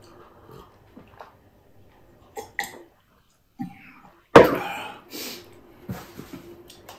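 Quiet sipping and small glass sounds from a drinking glass, then about four seconds in a single loud cough that fades quickly, followed by a few softer sounds.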